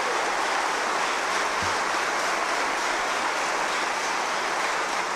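Sustained applause from a large audience of many people clapping, steady in level.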